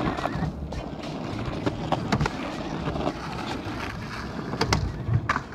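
Skateboard wheels rolling with a steady rumble, broken by sharp clacks of the board: two about two seconds in and several more near the end.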